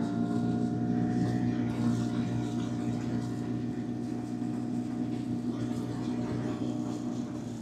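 Yamaha outboard motor running steadily under way, its pitch rising slightly in the first second.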